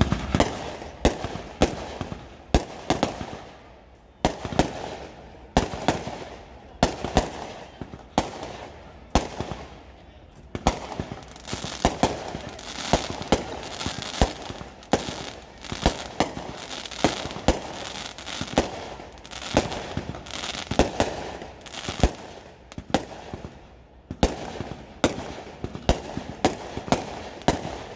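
Fireworks and firecrackers going off one after another: sharp bangs at uneven spacing, often more than one a second, with crackling between them.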